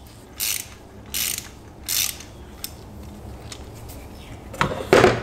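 Socket ratchet clicking in three short runs, about three-quarters of a second apart, then two loud metal clunks near the end as the ratchet is set onto a long extension sitting in a spark plug well.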